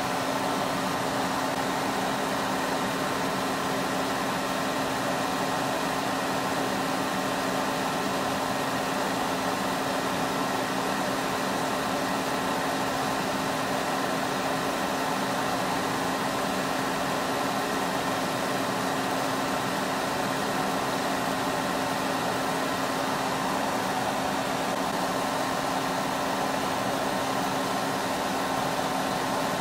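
Small benchtop solder fume extractor fan running steadily: an even rushing hiss with a constant low hum that does not change.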